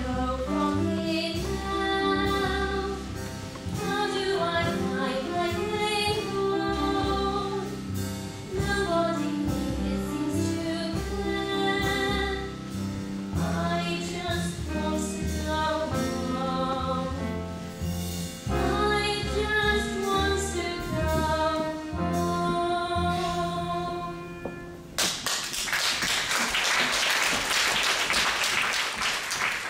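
A girl sings a solo song over a musical accompaniment. About 25 seconds in, the song ends and the audience applauds.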